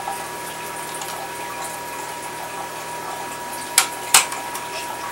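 Two sharp clicks close together about four seconds in, as a flathead screwdriver pries open the plastic retaining notches on the Xbox 360's fan housing. A steady hiss with a faint high hum runs underneath.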